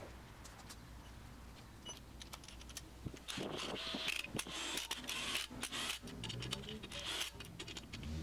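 Irregular clicks and scraping from hand work on the car's brake assembly, getting busier and louder about three seconds in.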